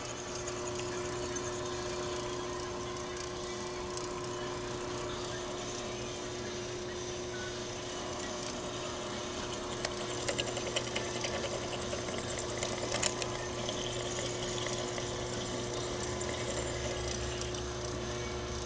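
Drill press motor running at a steady pitch while cross-drilling a steel pin, with a few sharp clicks and scrapes from the bit around the middle.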